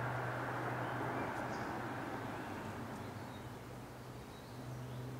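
Outdoor garden ambience: a steady low hum that swells and fades over an even background hiss, with a few faint bird chirps.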